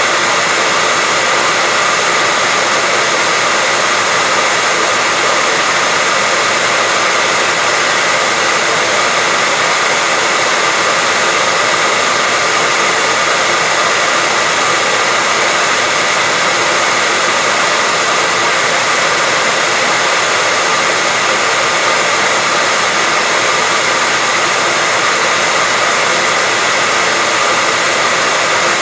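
Hair dryer running steadily: an unchanging rush of air with a faint high whine from the motor.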